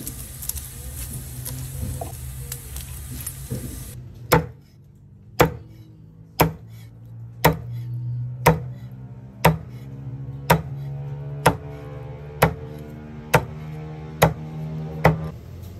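Cleaver chopping through crispy pork belly on a board: about a dozen sharp chops, roughly one a second, starting about four seconds in, over background music.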